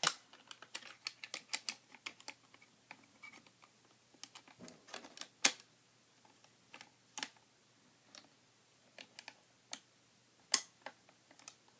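Irregular metallic clicks and knocks of a Remington 870 Wingmaster pump shotgun's parts being worked as a part is slid back into place during reassembly. The sharpest clicks come at the start, about five and a half seconds in, and about ten and a half seconds in.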